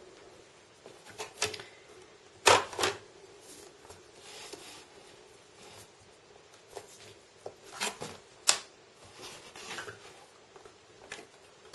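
Hands fitting the aluminium bottom cover back onto an Acer Iconia dual-screen laptop's underside and pressing it into place: scattered clicks and light taps, with a sharper double knock about two and a half seconds in.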